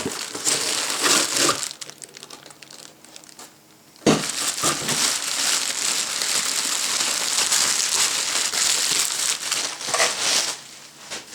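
Plastic packaging crinkling and rustling as a radio-control transmitter is unwrapped. There is a short burst at the start, a lull, then about six seconds of steady crinkling from about four seconds in, stopping shortly before the end.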